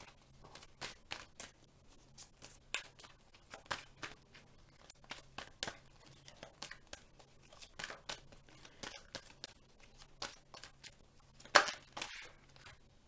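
A deck of guidance cards being shuffled by hand: a run of irregular light card snaps and slaps, a few a second, with one louder snap near the end.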